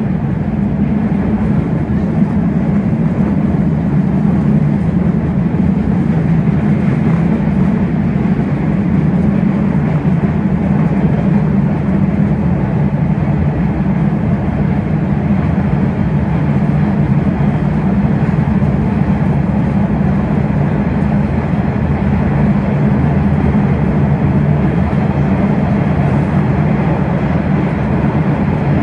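Steady low rumble of an MBTA Red Line subway car running at speed through the tunnel, heard from inside the car: wheels on rails and running gear, with no stops or announcements.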